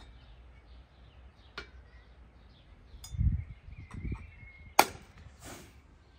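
A few knocks and thumps: two dull thumps, then one sharp knock, the loudest, followed by a short swish.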